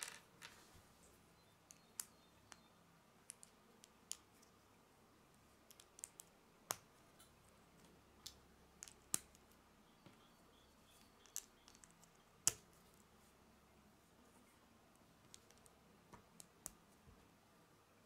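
Small plastic Lego pieces being handled and pressed together, giving scattered sharp clicks at irregular intervals, the loudest about two-thirds of the way through.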